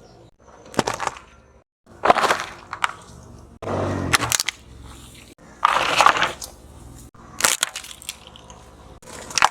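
Objects being crushed under a car tyre: several separate crunching and cracking bursts, each under a second, with short gaps between them.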